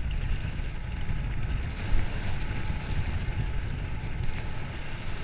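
Wind buffeting the microphone as a loud, fluctuating low rumble, with a single knock about two seconds in.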